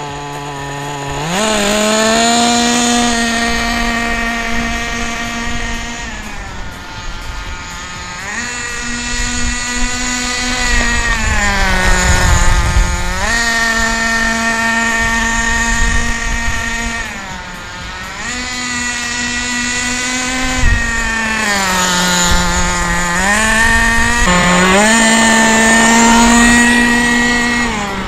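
HPI G3.0 HO nitro engine of an HPI WR8 radio-controlled rally car running during break-in. Its pitch repeatedly rises and falls back as the throttle is eased on and off in part-throttle runs.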